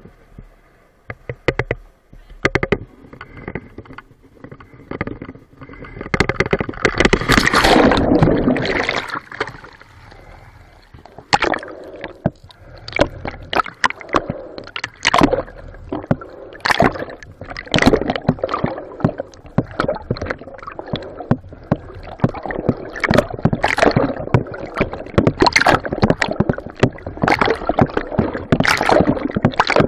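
Water splashing and sloshing with irregular knocks and gurgles, louder for a couple of seconds about seven seconds in.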